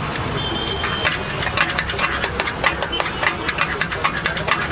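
Metal spatula striking and scraping an iron wok in rapid clicks, several a second, as food is stir-fried; it starts about a second in, over a steady low rumble.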